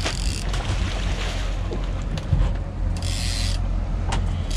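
Boat engine humming steadily, with water splashing as a salmon is scooped into a landing net and lifted from the water about three seconds in.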